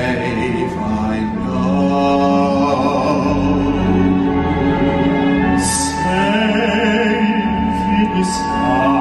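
Two singers performing a duet into stage microphones over backing music, with long held notes.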